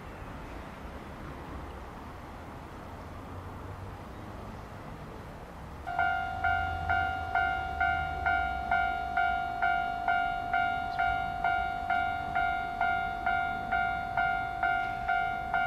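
Japanese railroad crossing warning bell starts about six seconds in, ringing steadily at about two strikes a second, each strike fading before the next: the signal that a train is approaching and the barriers are coming down. Before it there is only a low background rumble.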